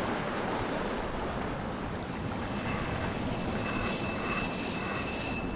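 Steady rushing wash of sea waves on a rocky shore. A faint high whine joins in about halfway through.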